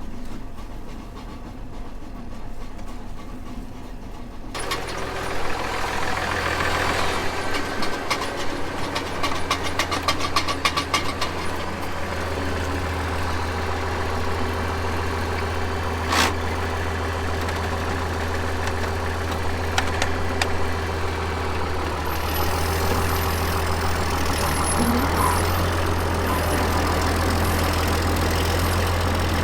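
An engine running steadily with a deep hum, getting louder about four and a half seconds in, with a stretch of rapid clatter after that.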